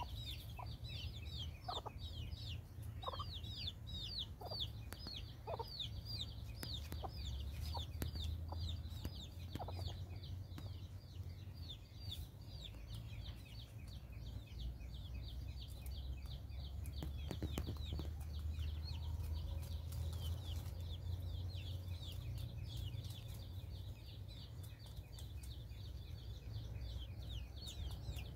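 Chickens clucking now and then over continuous, rapid high-pitched chirping, with a steady low hum underneath.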